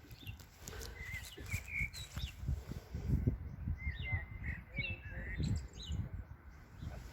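Small songbirds chirping and twittering in short, repeated calls and trills, over an irregular low rumble.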